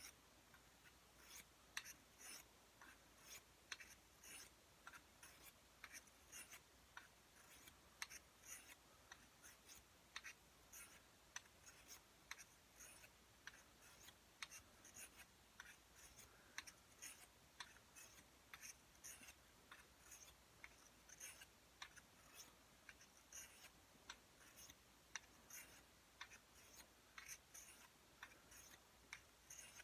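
SOCP dagger blade swiped along a sharpening steel: light, quick scraping strokes, about two a second, faint throughout.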